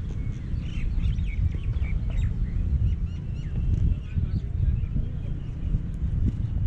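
Birds chirping: many short, quick calls, one after another, over a steady low rumble.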